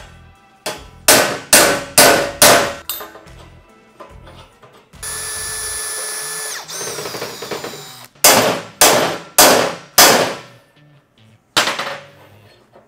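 Hammer blows on steel driving a fork bushing into a minibike frame's neck tube: four sharp ringing strikes, then a drill runs for about a second and a half and winds down, then five more strikes.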